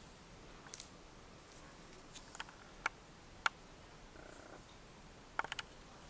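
Paper photo cards and plastic packaging being handled: soft rustling with scattered small, sharp clicks and taps, ending in a quick run of three clicks near the end.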